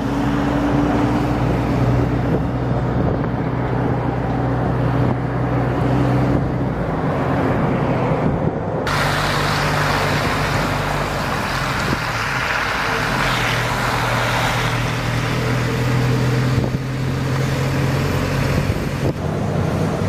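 Motor vehicle engine running at a steady low hum under road and wind rush, as from a vehicle on the move. About nine seconds in the sound changes abruptly to a brighter rushing hiss, and the engine hum comes back soon after.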